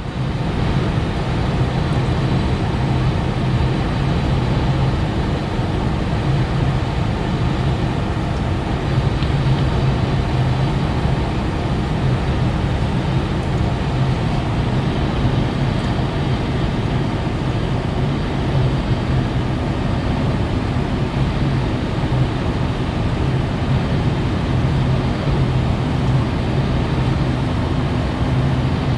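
DAF XG+ truck cruising at steady motorway speed, heard inside the cab: an even low engine drone under steady road and tyre noise.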